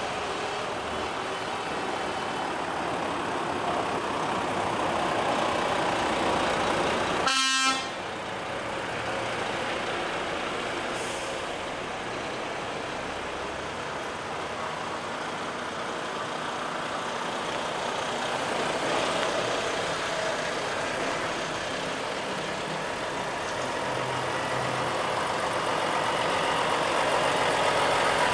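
A convoy of heavy trucks drives slowly past, engines and tyres running steadily. About seven seconds in, a truck air horn gives one short blast.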